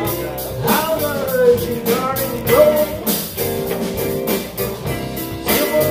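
Live blues band playing an instrumental stretch: an electric guitar lead with bent notes over steady drums and bass.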